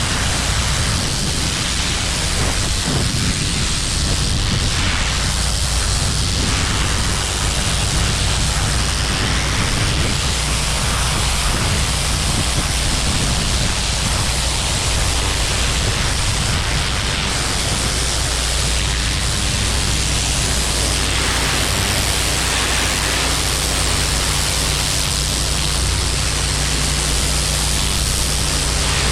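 Pressure washer running: a steady low engine hum under a loud, even hiss of high-pressure water spraying onto concrete.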